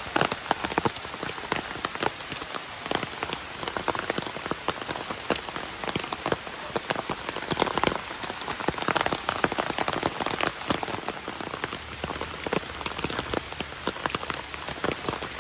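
Heavy rain hitting an umbrella held just over the microphone: a dense, steady hiss with many sharp individual drop strikes.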